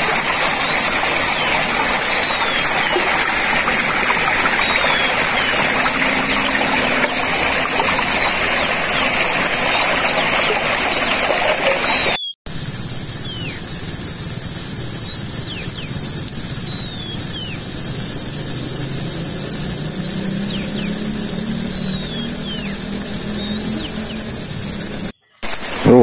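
Shallow forest stream running over rocks, an even rushing of water under a steady high-pitched drone. After a sudden cut about halfway, the rushing falls away and the steady high-pitched drone carries on, now in two bands, over a faint low rumble.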